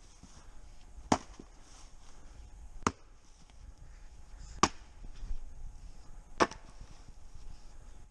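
Splitting maul striking firewood rounds, four sharp chopping blows a little under two seconds apart as the wood is split.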